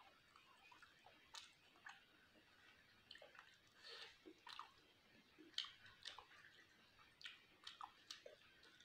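Faint close-miked chewing of a mouthful of rice and chicken curry eaten by hand: irregular soft, wet smacks and clicks of the mouth, about one or two a second.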